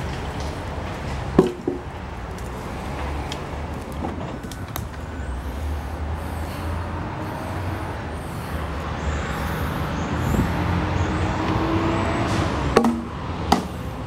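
Skid steer engine running steadily with a low rumble, with a few sharp knocks of wood: one early and two close together near the end.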